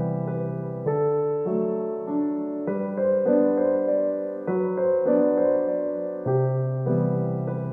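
Background keyboard music: slow, soft piano-like chords changing about once a second over a low bass note.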